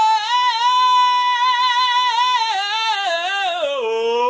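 A male vocalist holding one long, high sung "oh" with a wavering vibrato, unaccompanied, the note sliding down near the end.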